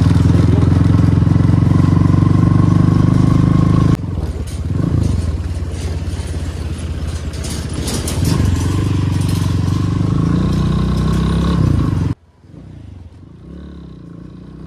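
Motorcycle engine running on the move over a rough gravel road, steady at first, then rising and falling in pitch. The sound changes abruptly about four seconds in and drops much quieter near the end.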